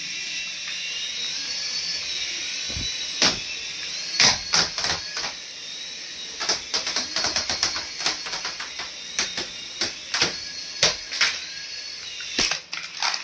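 Small coaxial-rotor toy RC helicopter flying, its electric motors and rotors giving a steady high whine that wavers slightly in pitch. From about three seconds in, repeated sharp clicks and knocks cut through it.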